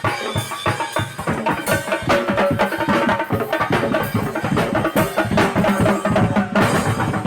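Parade band music: drums beating a fast, busy marching rhythm, with a pitched melody line played over them.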